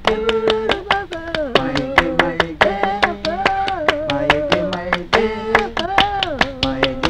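Women singing a chant to the orixás over steady hand clapping, about four claps a second. The voices hold each note and then glide to the next.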